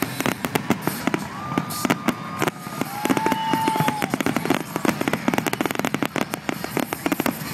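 Fireworks grand finale: a rapid barrage of aerial shells bursting, many sharp bangs and crackles a second. Two long steady whistles sound in the first half.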